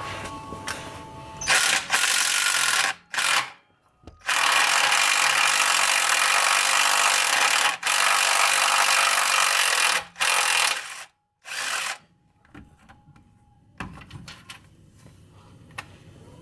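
Cordless impact wrench run in a few short bursts, then one long run of about six seconds and two more short bursts, working a bolt under a 2007 Jeep Wrangler JK. Scattered light metal clicks follow near the end.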